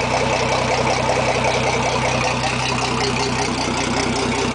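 Mercury Verado 250 HP outboard engines idling steadily.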